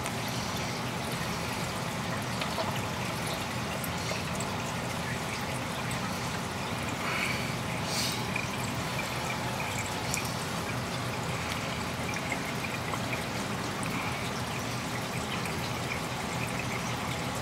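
Aquarium filter water trickling and splashing steadily, with a few faint ticks.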